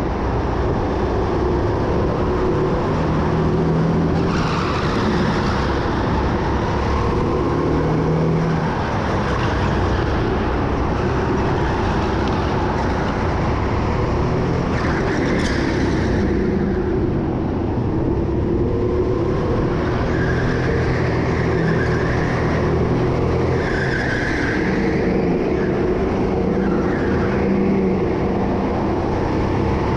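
Go-kart engine running at racing speed, its pitch rising and falling as the throttle is worked through the corners.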